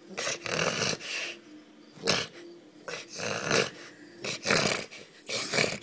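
French Bulldog making a run of short, noisy breathing sounds, several in a row with brief gaps between them.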